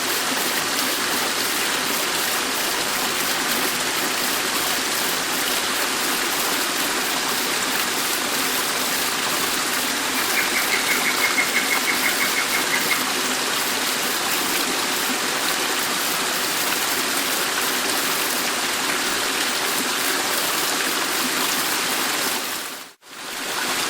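Dettifoss waterfall thundering as a steady, dense rush of falling water. About ten seconds in, a rapid run of high ticks lasts for about three seconds over it. Near the end the sound dips out abruptly for a moment and comes back.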